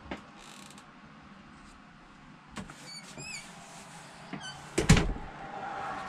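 A few light clicks and knocks, a short run of high chirping squeaks about halfway through, then a loud thump near the end: a travel trailer's interior door being worked and shut.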